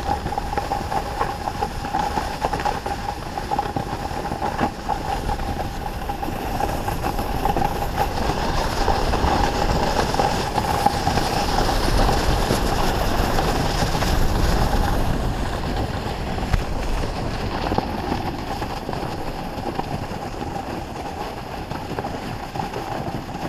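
Snowboard base sliding over snow: a steady rushing noise that builds to its loudest around the middle and eases off in the second half, with a faint steady hum running under it.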